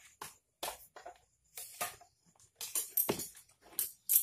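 Irregular clicks, taps and rustles of hands handling circuit boards, cables and tools inside an opened LED TV, with a few sharper knocks in the second half.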